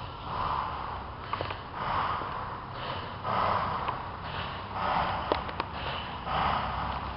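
Breathing close to the microphone, a noisy puff repeating about every one and a half seconds.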